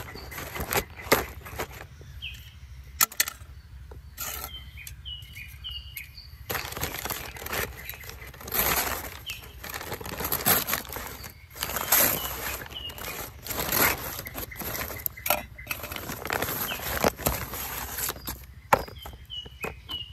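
Brown kraft-paper mailer bag being handled and crumpled open by hand, crackling and rustling unevenly, loudest through the middle and later part. Birds chirp briefly in the background near the start and again near the end.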